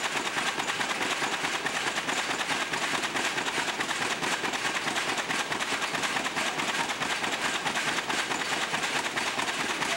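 A steady, rapid clatter of loose paper firecracker tubes rattling on a motor-driven shaking frame, settling into the rows of its slatted grid.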